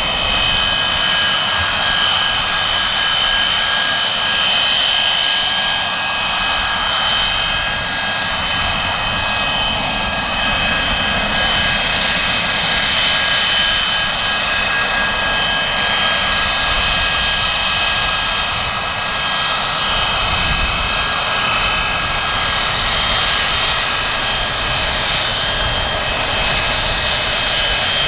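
Pratt & Whitney JT8D-17 turbofan engines of a Boeing 737-200 Advanced running, a steady high whine of several held tones over a broad rush of jet noise.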